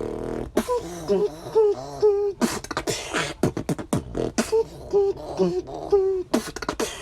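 Vocal beatboxing: a beat of mouth percussion and falling lip-bass drops, woven with pitched humming and short quacking duck sounds into a melodic sound effect.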